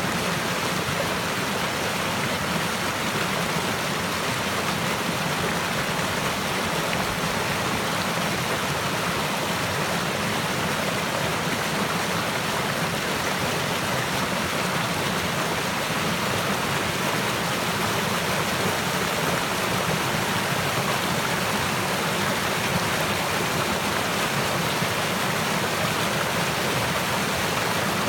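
Running stream water, a steady, even rushing and babbling without pauses.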